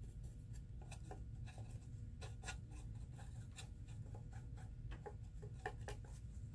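Small paintbrush rubbing acrylic paint across a wooden craft panel: faint, irregular scratchy strokes and light ticks over a low steady hum.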